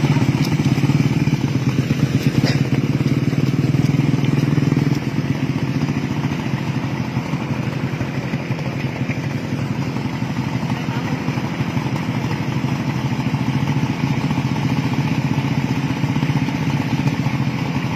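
Kawasaki Ninja motorcycle engine of a homemade light aircraft running steadily, a little quieter from about five seconds in.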